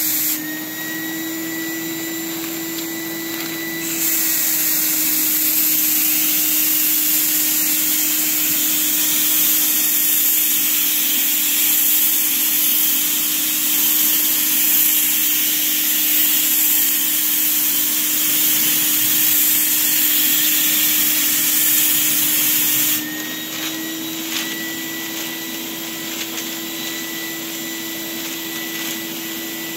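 Paint spray gun hissing as the trigger is held, fed by the steady whine of its air-supply motor. A brief burst of spray at the start, then one long pass from about four seconds in until about seven seconds from the end. In between, only the motor whine is heard, a little higher in pitch while the gun is not spraying.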